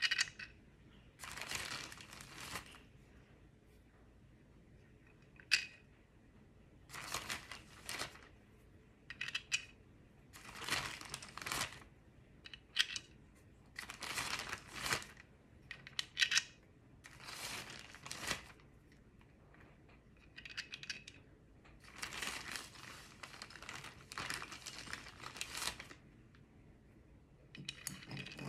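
A series of short rustling, squeaky rubbing sounds, with pauses between them, as coloured foam pieces are handled and pressed into the holes of a foam toy tree.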